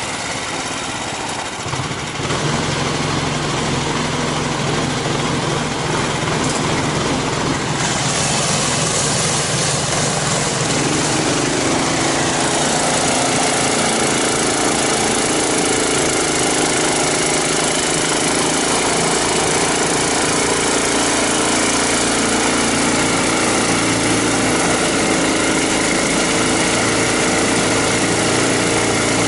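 Engine of a Sibiryak all-terrain vehicle running as it drives through snow, getting louder over the first several seconds as it comes closer, then a steady drone.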